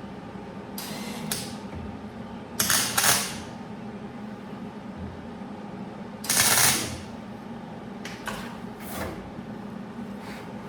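Welder laying short tack welds on a steel quarter-panel patch: about five brief crackling bursts, each under a second, with the loudest about three seconds in and again past the middle.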